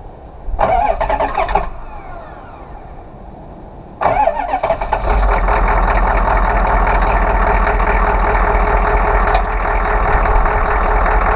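Cold 6.2 Detroit V8 diesel started after its glow plugs are preheated. A brief burst of cranking is followed by a pause, then a second crank about four seconds in; the engine catches and settles into a steady, rumbling run.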